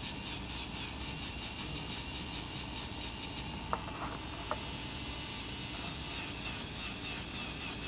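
Slow-speed dental handpiece running with a finishing disc against a composite restoration on a model incisor: a steady high hiss, with two faint ticks around the middle. The disc is being used in place of a bur to cut grooves into the tooth's surface.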